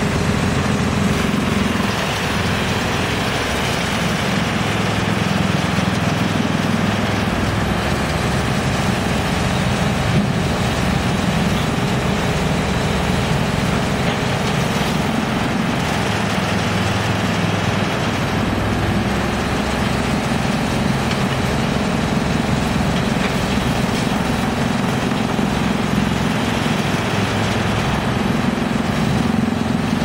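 Rotexmaster YGX2113 industrial drum wood chipper running steadily, its electric-motor-driven drum giving a constant loud mechanical hum, mixed with the engine of an excavator working alongside.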